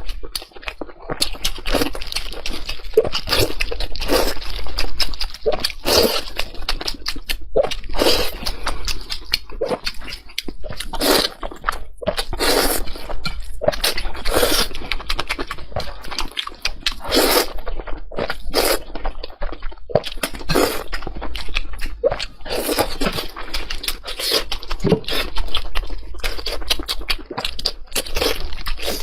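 Close-miked eating: a person chewing and biting food, with dense, irregular crunching and wet mouth sounds.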